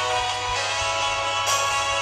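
Instrumental karaoke backing track of a slow ballad playing between sung lines, with held notes and a few fresh note attacks, over a low steady hum.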